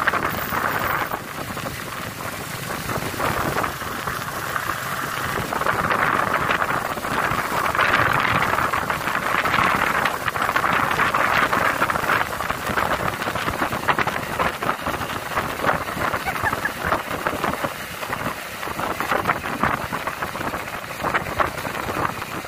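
Riding noise from motorcycles on a dirt road: a steady rushing hiss of wind and running engine. It swells a little in the middle.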